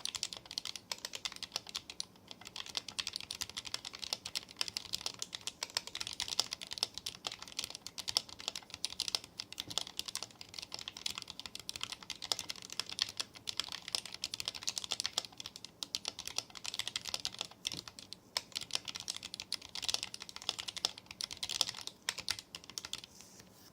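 Fast, continuous typing on a mechanical keyboard fitted with lubed Gateron optical silver linear switches, with a few brief pauses.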